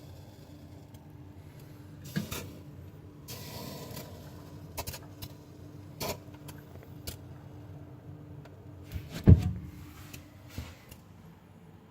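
Kenwood fridge running with a steady low hum that stops about ten seconds in, with a brief hiss about three seconds in and several sharp clicks and knocks, the loudest near nine seconds. The owner reports the hissing, along with smoke, as a fault in a fridge that is only four days old.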